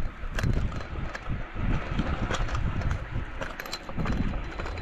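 Rolling noise of a moving ride along a street, rough and uneven, with low rumble, wind on the microphone and scattered small knocks and rattles.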